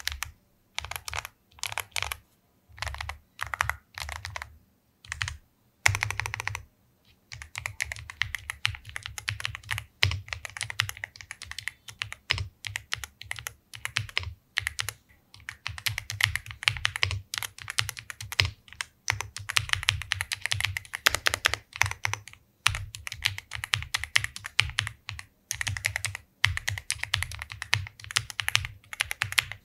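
MageGee Lite 87 wireless mechanical keyboard being typed on in a sound test: short separate clusters of keystrokes for the first six seconds or so, then fast, near-continuous typing broken by brief pauses.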